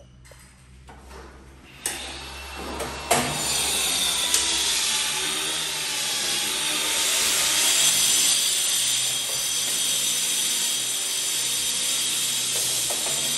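A power tool starts about three seconds in and runs steadily, a motor whine over a loud hiss, after a couple of light knocks.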